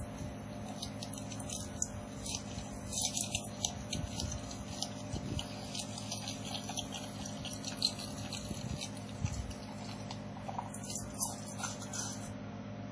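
Small tool clicks and scrapes on a phone circuit board, irregular and scattered, with a few sharper ticks, over a steady low electrical hum, during replacement of the phone's power IC.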